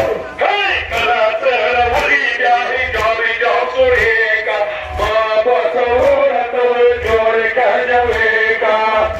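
A male voice chants a Pashto nauha (mourning lament) over horn loudspeakers. Mourners strike their chests in unison about once a second in time with it, each blow a sharp slap with a low thud.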